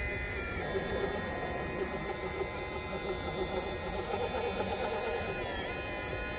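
Electric motor of an RC rock crawler whining under throttle, several high tones that dip in pitch together about five and a half seconds in as the throttle eases, over low rumbling noise from the drivetrain and ground.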